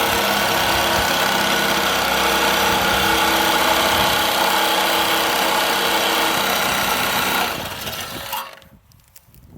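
A power tool running steadily at full speed with a high-pitched hiss, then switched off about seven and a half seconds in and spinning down to a stop.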